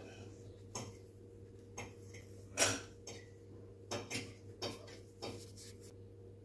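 Kitchen handling sounds: a metal spoon and dishes clicking and clinking, about eight short sharp clicks, the loudest about two and a half seconds in, over a faint steady hum.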